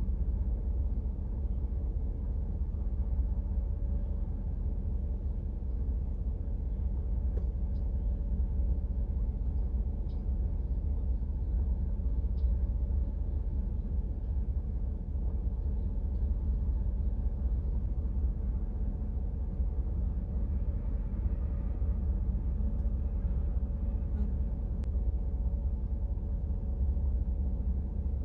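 Steady low rumble of an idling vehicle engine, heard from inside the cab, with a few faint ticks over it.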